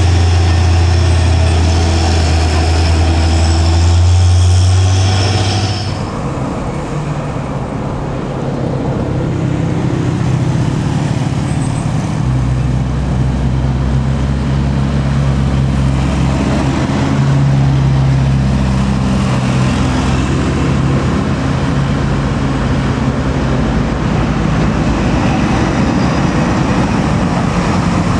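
Hino 500 trucks' diesel engines labouring uphill. First one truck's engine runs hard close by with a deep steady tone. About six seconds in, the sound changes abruptly to a second truck's engine pulling up the grade, its pitch shifting a little as it climbs.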